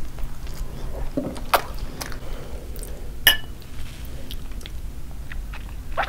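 Soft eating and mouth sounds with small clicks, then, about three seconds in, drinking glasses clink once with a brief ring.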